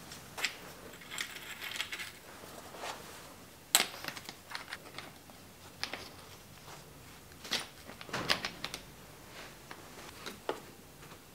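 A WTB saddle being fitted onto a seatpost's clamp by hand: irregular light metallic clicks and taps from the saddle rails and clamp parts, the sharpest about four seconds in and a quick cluster near eight seconds.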